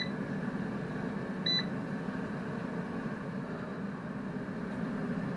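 Salter XL air fryer running with a steady fan hum, and one short high beep from its control panel about a second and a half in.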